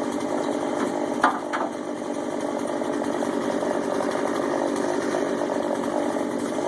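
Two-stroke gas chainsaw running steadily under throttle, with a few short sharp clicks about a second in.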